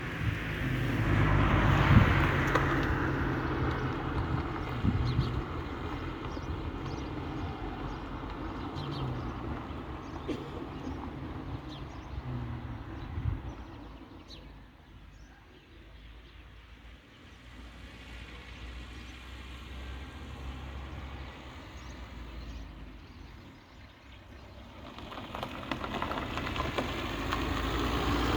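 Outdoor road traffic: a vehicle goes by about two seconds in, the sound dies down to a quieter stretch mid-way, and another vehicle approaches near the end.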